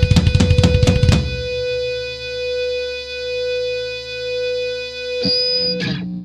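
Heavy metal band's full-band playing stops about a second in, leaving a held electric guitar note ringing out and swelling and fading in loudness. Near the end a click and a brief high squeal come before the recording cuts off abruptly.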